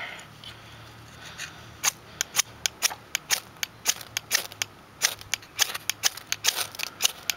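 Spark rod of a magnesium fire starter struck again and again with a steel striker, quick scraping strikes about three or four a second that begin about two seconds in, throwing sparks at the tinder.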